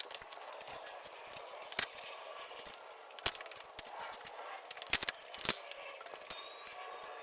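Small screwdriver working under a rubber motorcycle handlebar grip to free it, with several sharp clicks and scraping over a faint steady hiss.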